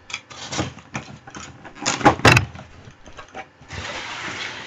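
Trading-card packaging being handled and opened by hand: a string of knocks, clicks and rustles, then about a second of steady rasping noise near the end.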